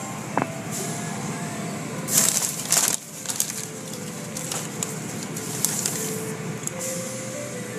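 Automatic tunnel car wash heard from inside the car: a steady rumble of machinery with the wet cloth curtain strips brushing over the car. About two seconds in, a loud hiss of water spray hits the car for about a second, followed by scattered light ticks and splashes.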